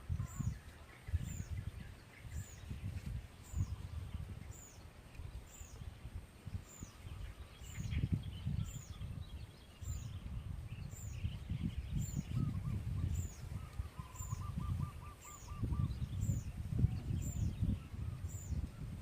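Strong wind gusting against the microphone in uneven low rumbles, with a high thin bird chirp repeating about every three-quarters of a second. About two-thirds of the way through, a short fast trill is heard.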